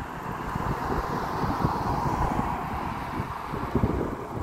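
Wind buffeting a phone microphone, with a rushing noise that swells and fades over a few seconds.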